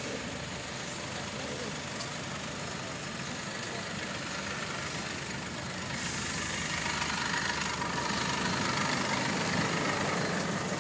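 Street traffic with bus engines running close by, a steady rumble and hiss that grows louder about six seconds in.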